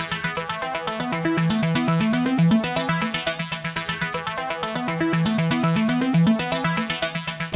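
Electronic background music: a fast, even pulse of short synthesizer notes over a moving bass line.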